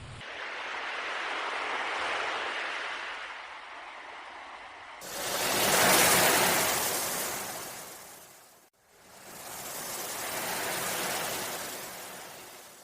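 Ocean waves washing in and drawing back in three swells of surf. The middle swell is the loudest: it starts suddenly about five seconds in and fades out just before the last one builds.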